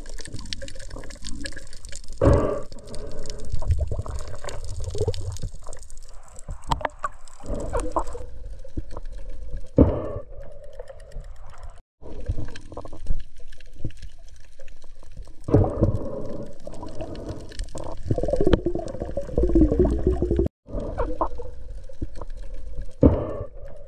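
Underwater sound picked up by a diver's camera: irregular whooshing and bubbling of water moving around the camera, with scattered clicks. It drops out for a moment twice.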